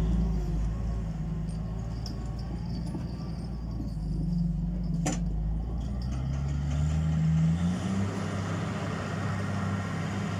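Large wheel loader's diesel engine running under load as it carries a heavy marble block on its forks, its note rising then dropping again around seven to eight seconds in. A single sharp knock about halfway through.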